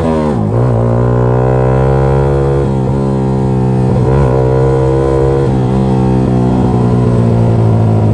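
Yamaha R15 V3's single-cylinder engine running loud through an aftermarket SC Project exhaust, heard from the rider's seat while under way. Its pitch falls near the start, then holds fairly steady with a few short dips.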